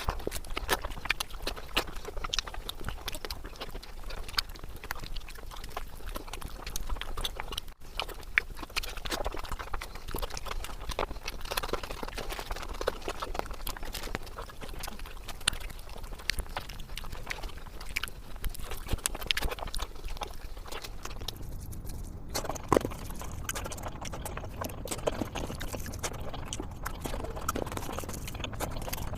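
Close-miked wet chewing and lip-smacking of mouthfuls of egg curry and rice, a dense run of irregular clicks and smacks with no talk.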